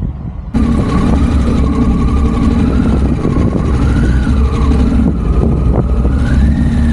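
Harley-Davidson Pan America 1250's V-twin engine running as the motorcycle pulls away and rides off. It comes in suddenly about half a second in, the revs rise and fall, and they climb near the end.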